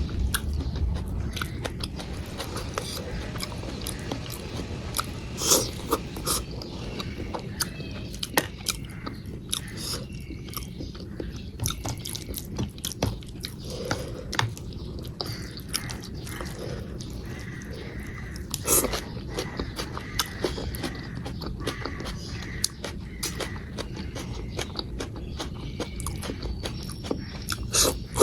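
Close-up eating sounds: a person chewing a meal of rice with dal and vegetables, with many wet mouth clicks and smacks, a few louder ones, over a low steady hum.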